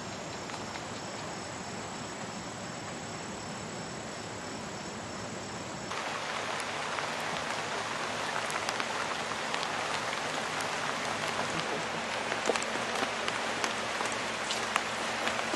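Steady rain hiss with a faint high steady whine over it. About six seconds in it cuts to louder rain falling on water, with many individual drops ticking close by.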